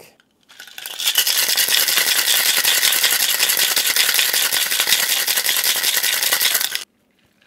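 Ice cubes rattling hard inside a stainless steel cocktail shaker, shaken vigorously with a rum, honey and cream cocktail to chill and mix it. The rapid rattle starts about half a second in and stops abruptly near the end.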